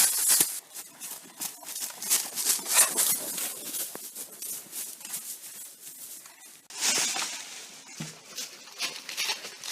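Irregular rustling and crackling, many short scrapes and crunches like movement through dry brush or leaves, with a louder stretch a few seconds before the end.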